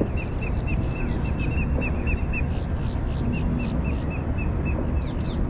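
A bird calling in a rapid series of short, clipped notes, about four to five a second, fading out after the first few seconds, over a steady low rumble.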